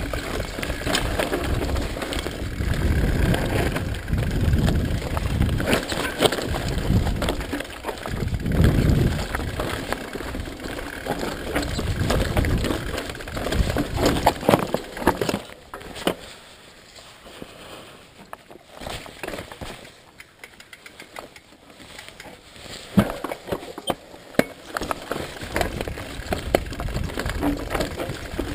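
Mountain bike descending rocky singletrack: tyres rolling over loose stones, with the bike rattling and many sharp clicks and knocks as it hits rocks, over a low rumble. The clatter eases to a much quieter stretch a little past halfway, then the knocks pick up again near the end.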